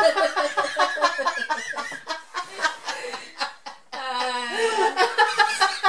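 Several people laughing hard together in rapid bursts, with a long high-pitched laugh about four seconds in.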